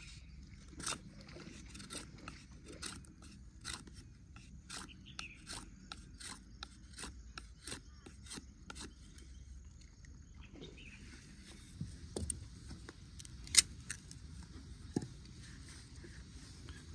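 Knife blade shaving wood in quick, regular strokes, about two scrapes a second, for roughly the first ten seconds. Then the carving stops and a few handling knocks follow, one sharp knock the loudest, about three-quarters of the way through.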